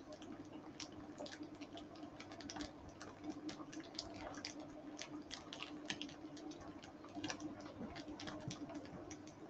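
Tofu slices frying in oil in a frying pan: faint, irregular crackling and spitting of the hot oil, over a faint steady hum.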